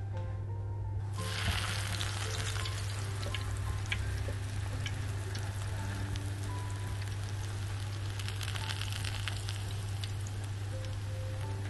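A folded tortilla quesadilla starts sizzling in hot frying oil in a pan. The sizzle begins suddenly about a second in as the tortilla goes into the oil, then goes on steadily with scattered crackles. A steady low hum runs underneath.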